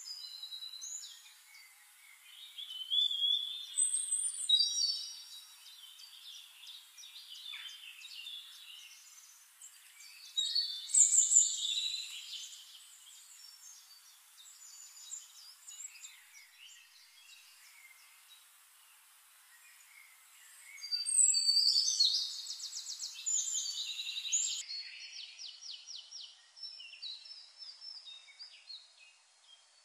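Small songbirds chirping and trilling in bursts of quick, high notes: a burst near the start, a loud one about a third of the way in, and a long one about two-thirds through. Between the bursts there is a faint hiss.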